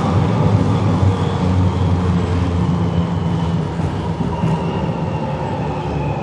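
Berlin S-Bahn class 485 electric train heard from inside the car while running and slowing into a station: a steady low rumble of the running gear, with a faint high whine gliding slowly down in pitch and the overall sound easing off as the train decelerates.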